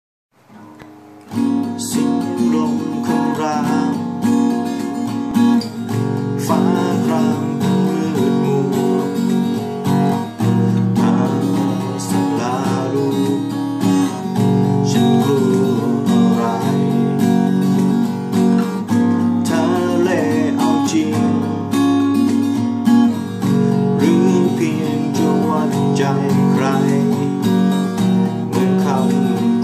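Acoustic guitar strummed and picked, starting suddenly about a second in and then playing steadily.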